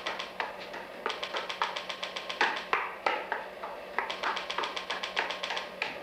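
A fast, uneven run of light taps and clicks, several a second, with a few brief pitched notes among them and a faint steady hum underneath.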